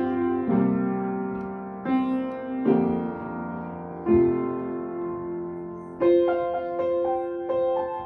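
Upright piano played solo: full chords struck every second or two, each ringing on and fading, then quicker, lighter notes from about six seconds in.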